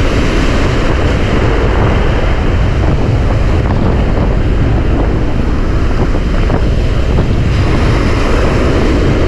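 Strong wind buffeting the microphone over breaking surf washing up around the shoreline, a loud, steady rush throughout.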